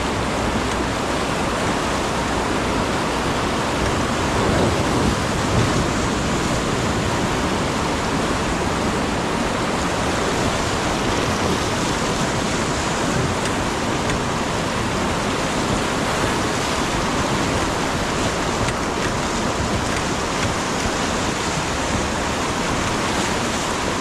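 Whitewater rapids of a fast mountain river rushing and churning around an inflatable raft, a loud, steady roar of water.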